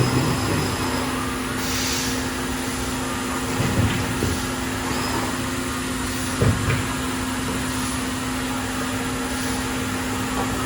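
CNC router's vacuum hold-down system running steadily with a constant hum, drawing about 23.6 inches of mercury on the sheet. A short hiss of air comes about two seconds in, and two brief knocks come about four and six and a half seconds in.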